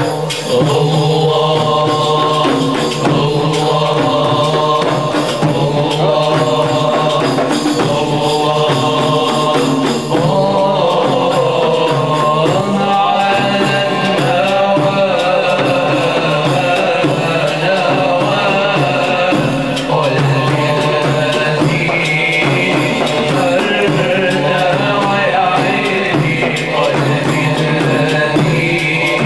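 A group of voices chanting a Sufi hadra dhikr together, with the melody rising and falling over a steady low held tone. Drums beat a regular rhythm under the chant.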